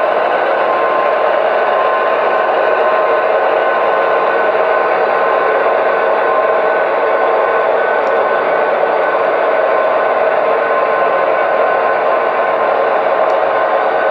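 Model diesel locomotives running with SoundTraxx Tsunami sound decoders, their small onboard speakers playing a steady diesel engine sound, along with model freight cars rolling on the track.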